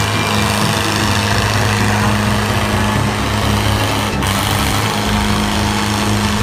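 Motor or engine running steadily with a constant low hum, dropping out briefly about four seconds in.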